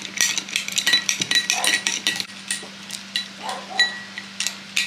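A metal spoon stirring gin and Flynn Paff caramels in a glass, clinking against the side again and again, several strikes leaving a short bright ring.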